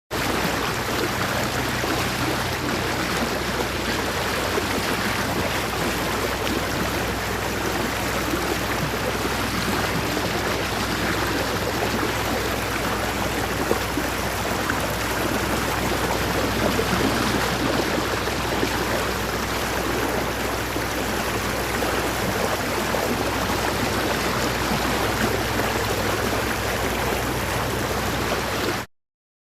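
Boat cruising: water rushing and splashing along the hull over a steady low hum. The sound cuts off abruptly near the end.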